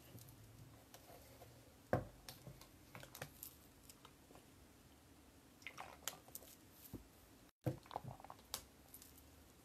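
Light clicks and knocks of small objects being handled in a quiet room, with one sharper knock about two seconds in and more clicking near the middle and the end.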